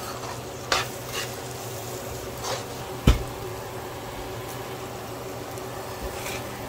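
Onion-and-spice masala sizzling in hot oil in a pan as it is fried and stirred, with a few short scrapes of the spatula. A single sharp knock about three seconds in is the loudest sound.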